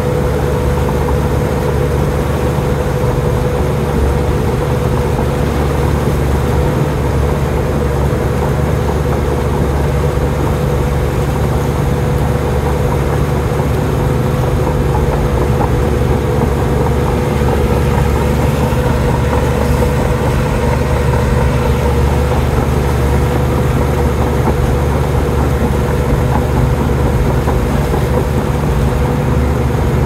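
Komatsu D53P bulldozer's diesel engine running steadily: a deep, even drone with a constant higher tone above it.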